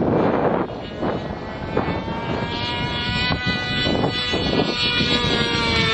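Radio-controlled Bobcat model jet flying past. Its engine whine comes up out of a rushing noise about two seconds in and slides steadily down in pitch as it goes by.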